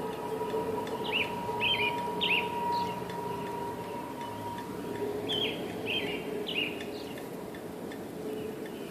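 An unexplained steady humming tone in the sky, holding one pitch with a higher overtone and fading out about halfway through, then returning faintly near the end. Small birds chirp twice over it in quick runs of short high notes.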